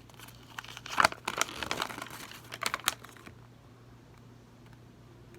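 Packaging crinkling and clicking as it is handled, in a burst that stops a little over three seconds in.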